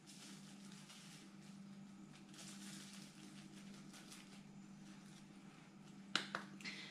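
Very faint hiss of Old Bay seasoning being shaken from a shaker over food in a slow cooker, over a low steady hum. A couple of soft taps come about six seconds in.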